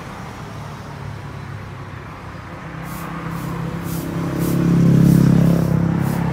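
A motor vehicle's engine running as it passes close by, its low hum swelling to a peak about five seconds in and then easing off. A run of short, high hisses repeats through the second half.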